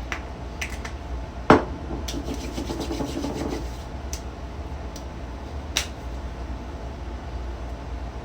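Hands rubbing vitamin E oil into the skin of the face, with a few sharp clicks, the loudest about a second and a half in and another near six seconds, over a steady low hum.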